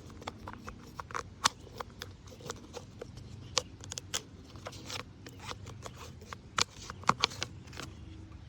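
Faint, irregular clicking and crackling from inside the tree, scattered sharp ticks with a few louder ones around the middle and near the end.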